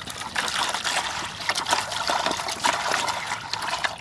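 Water trickling in a thin stream from a plastic jug into a plastic bucket, splashing, with many irregular short wet clicks throughout.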